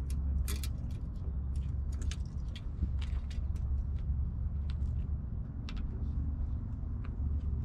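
Scattered light clicks and small rattles of fishing rods and tackle being handled, over a steady low rumble.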